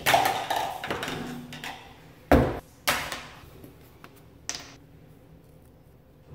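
A door bangs shut at the start, ringing briefly in a small tiled bathroom, followed by a few sharp knocks and clacks of things being handled and set down on the sink counter.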